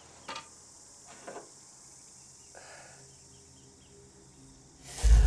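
Faint steady high-pitched insect hiss with a few soft clicks, then near the end a sudden loud, deep rumble starts.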